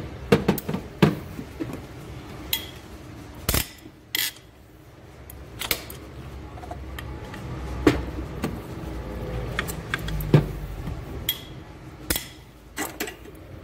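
Irregular metallic clinks and knocks of a socket and long-handled wrench working on the cylinder head bolts of a Hyundai Accent engine as the bolts are loosened for head removal.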